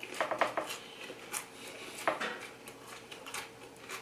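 Close-miked eating sounds: a run of short, irregular mouth clicks and smacks while chewing food, with a few sharper ticks.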